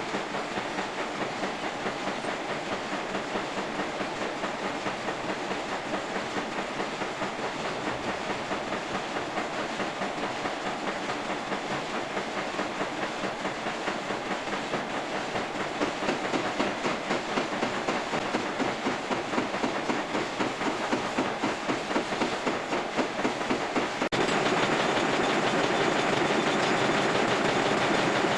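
Metal lathe running steadily with a fast, even rhythmic clatter, getting louder near the end.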